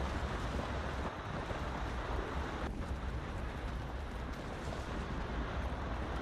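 Steady rumbling noise, heaviest in the deep low end, with no separate bangs or other distinct sounds; there is a brief dip about a third of the way in.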